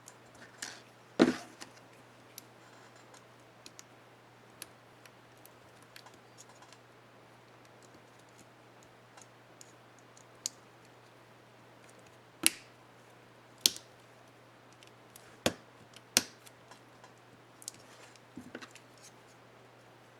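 Sharp plastic clicks and snaps from an HP dm4 laptop keyboard's space-bar keycap and its clips being handled and pressed, loudest about a second in, then four loud clicks near the middle and a quick cluster near the end, over a faint steady hum.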